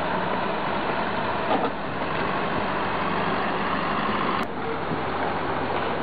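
Heavy diesel engine running steadily. About four and a half seconds in, a sharp click, after which the sound is thinner with less low rumble.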